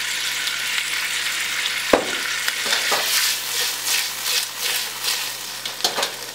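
Onions, capsicum and green chilies sizzling in hot oil in a wok. A sharp knock about two seconds in, then the wok is tossed: the vegetables rush and scrape across the metal in a run of uneven swishes.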